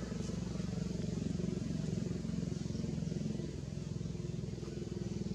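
A vehicle engine running steadily with a low, fast-pulsing hum, a little louder in the middle and easing off after.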